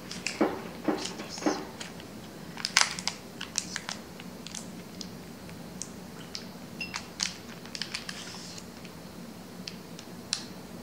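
Hands handling a plastic-barrelled pen and its clear plastic packaging on a tabletop: scattered light clicks, taps and crinkles, with a few louder knocks in the first couple of seconds.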